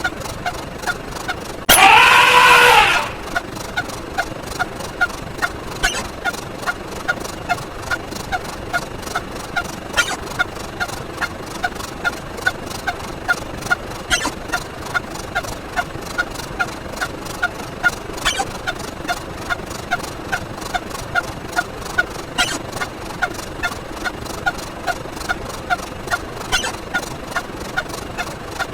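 An edited sound effect repeated rapidly, short pitched blips about two to three times a second. About two seconds in, one louder, longer pitched effect bends down and back up over about a second, and a faint click comes roughly every four seconds.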